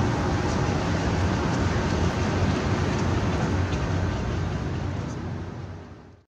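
Steady outdoor city rumble with no distinct events, fading out over the last second.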